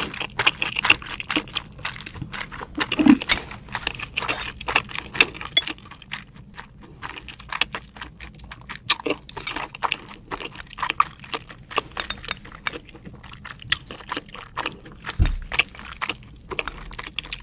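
Chewing and mouth sounds from eating salmon sushi: a dense, irregular run of short clicks and smacks.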